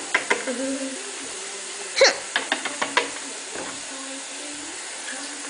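Scattered light clicks and taps from plastic toy figures being handled on a wooden table, with one sharper click about two seconds in, over a steady hiss.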